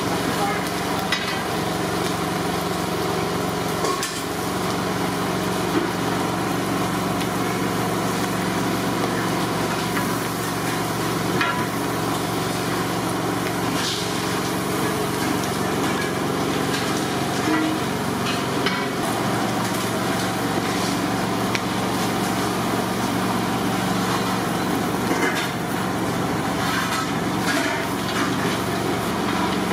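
Chopped onions and green chillies sizzling in hot oil in a large aluminium pot, with a long metal ladle stirring and now and then clinking and scraping against the pot, over a steady low roar.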